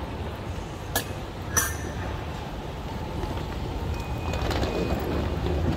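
Escalator running with a steady low rumble under the hum of a large terminal hall, with two sharp clicks about one and one and a half seconds in.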